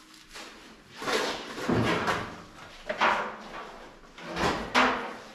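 Handling noises in a workshop: three or four short bursts of scraping and rattling as gear is picked up and moved about, with no power tool running.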